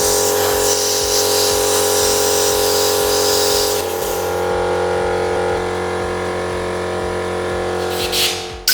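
Small electric power tool motor whirring steadily while cleaning a cast-iron engine part. Its pitch shifts slightly about four seconds in, and it stops shortly before the end, followed by a few rubbing strokes.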